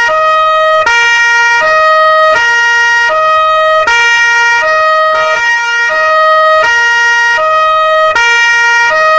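Two-tone police siren alternating steadily between a low and a high note, each held about three-quarters of a second.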